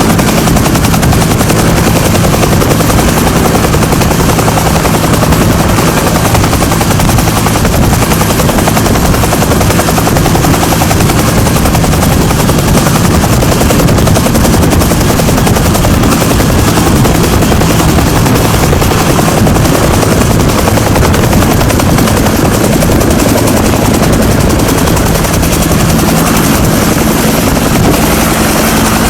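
UH-1H Huey helicopter running steadily and loudly, its two-bladed main rotor beating with a fast, even thump over the whine of its single turboshaft engine.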